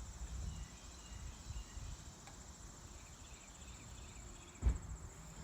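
Steady high-pitched insect trill, typical of crickets, over a low rumble, with a single thump about four and a half seconds in.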